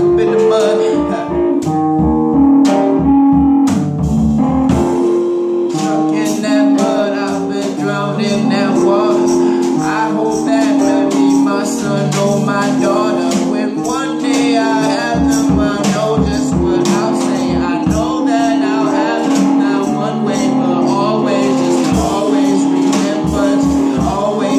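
Live band of drum kit, grand piano and electric guitar playing together, the Gretsch kit's drums and cymbals keeping time under the piano and guitar.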